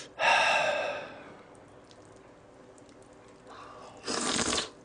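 A person slurping a mouthful of bibim-myeon (cold spicy mixed noodles) with fried egg, a short loud slurp near the end. It is preceded by a loud breathy sound in the first second.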